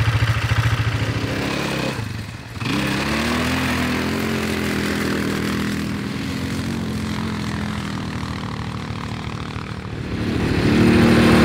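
Quad bike (ATV) engine running, with a short dip about two seconds in. It then revs up, holds a steady pull, and revs again near the end.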